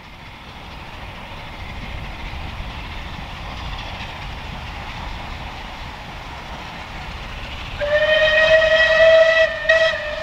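The steam whistle of SR Battle of Britain class Bulleid Pacific No.34072 blows one long note about eight seconds in. It breaks off briefly, then sounds a short second note, over the steady rumble of the passing train. The rumble grows louder over the first couple of seconds.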